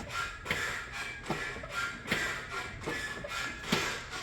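A rhythmic metallic knock-and-rattle from a Mazda, one short clack with a brief ring about every 0.8 seconds, repeated steadily. It is the weird rattle the mechanic puts down to slightly rusted hinges or the exhaust.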